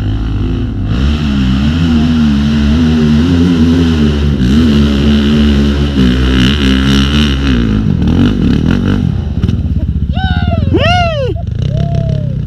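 Off-road dirt bike engine running under load, its revs rising and falling unevenly as the rider works the throttle. Near the end the engine falls back and a few quick high rising-and-falling tones sound.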